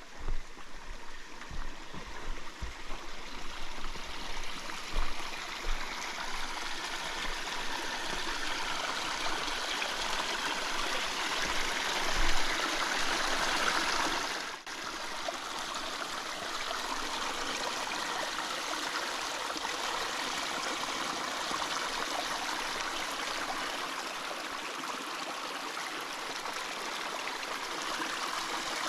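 Stream of water running steadily, swelling over the first half, with a short dip about halfway through. A few soft low thumps in the first seconds and one more just before the dip.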